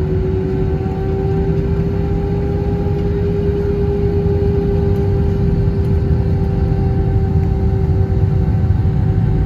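Airbus A321-231's IAE V2500 turbofan engines running at low thrust: a steady rumble with a steady humming tone over it, slowly growing louder.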